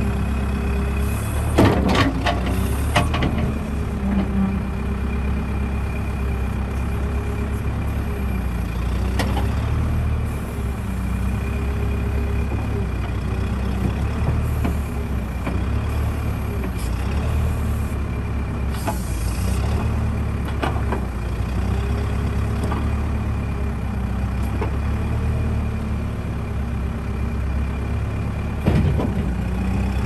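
New Holland 555E backhoe loader's diesel engine running steadily as the machine drives slowly and turns, with a steady high whine over the engine hum. A few sharp knocks or clanks break in, the loudest about two seconds in, again a second later, and near the end.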